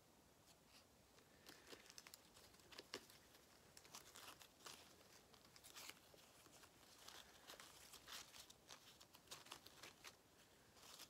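Faint, irregular rustling and crinkling of fake leaf sprigs being handled and pushed into a moss wreath, starting about a second and a half in.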